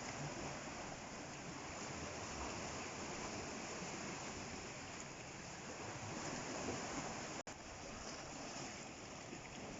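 Sea waves washing in, a steady rushing noise, with a momentary break in the sound about three-quarters of the way through.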